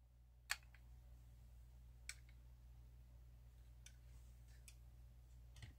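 Near silence with a few faint clicks, the clearest about half a second in and another about two seconds in: a small die-cast model van being handled and set down on a display stand.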